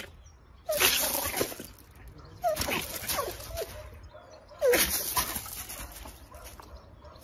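A dog and a kitten facing off: three short bursts of noise about two seconds apart, each with brief whimpering, squealing cries.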